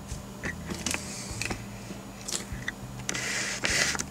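Hands handling a plastic toy car: scattered light clicks and taps, then a rubbing scrape lasting about a second near the end.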